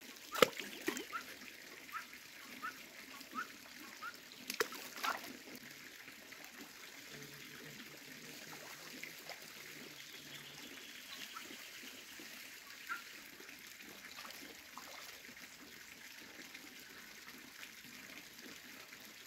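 Faint steady trickle of water at a fish pond, with a few small plops and drips in the first five seconds.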